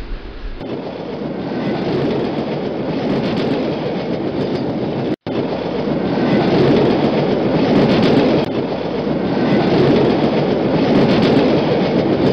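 A train running along the track: a loud, steady running noise that swells about half a second in, drops out for an instant about five seconds in, then carries on.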